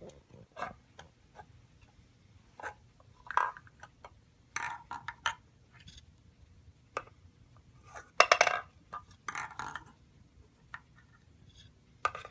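A ball and a wooden object permanence box being handled: irregular knocks and short clatters as the ball drops through the hole and rolls into the tray and small hands tap the wood. The loudest clatter comes about eight seconds in.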